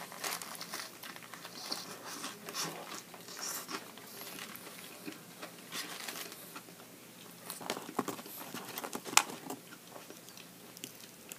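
Close-up chewing and mouth sounds of a person eating a burger, with the aluminium foil wrapper crinkling as it is handled. A single sharp click stands out about nine seconds in.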